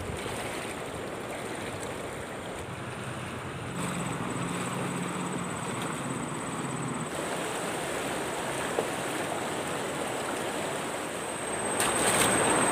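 Fast-flowing, flood-swollen river water rushing steadily. Near the end, louder splashing as hands work in the shallow water.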